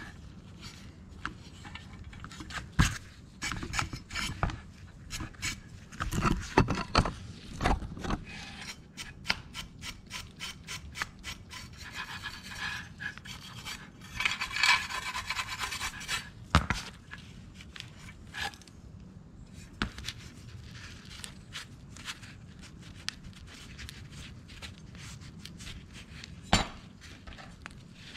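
Hand wire brush and rag scrubbing a rusty steel rod on cardboard in quick rasping strokes, with a few sharp knocks, clearing surface rust before priming. The strokes come thickest a little before the middle, then thin out.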